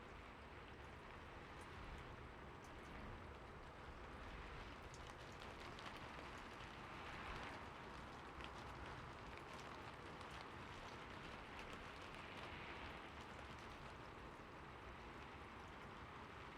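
Steady, quiet rain falling, with scattered individual drops ticking through it.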